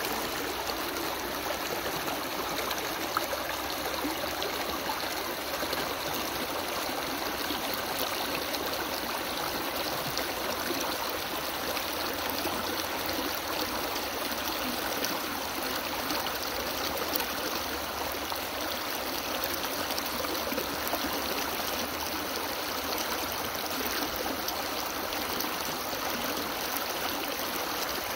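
Shallow rocky stream running over stones and a fallen log in small riffles: a steady, unbroken wash of water.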